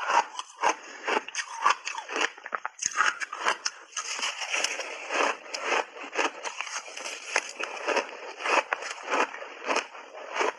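Shaved ice being chewed in big mouthfuls, close to a clip-on microphone: a quick, irregular run of crisp crunches, about two to three a second.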